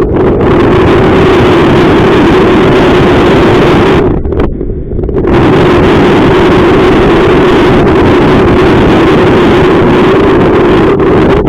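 Strong wind buffeting the microphone in a loud continuous rush, easing briefly about four seconds in before returning.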